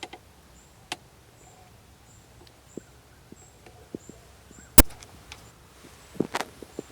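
A single loud rifle shot about five seconds in, a sharp crack that rings out briefly over the field. Quiet small clicks and knocks before and after.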